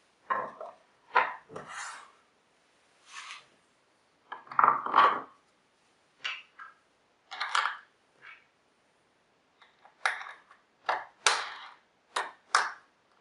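Plywood and MDF jig parts being handled by hand: a string of irregular short knocks and scrapes as a block is set on the sled and slid into place, with a bolt and washer fitted through it.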